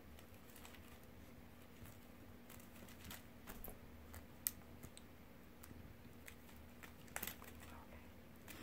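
Faint, scattered small clicks and crackles from a southern flying squirrel picking at seeds on a plastic-wrapped bird seed bell. The clicks are sparse and irregular, with the sharpest one about halfway through.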